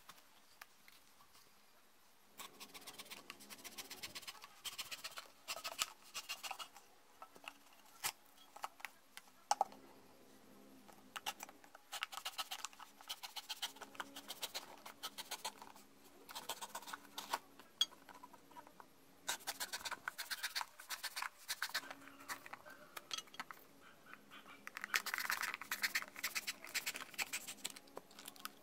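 A knife sawing through a cardboard crisp tube in several bursts of rapid scraping strokes, each lasting a few seconds, with short pauses between.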